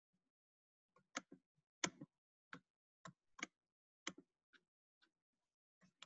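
Faint, irregular clicking from someone working a computer: about a dozen short, sharp clicks spread over five seconds, some in quick pairs, against near silence.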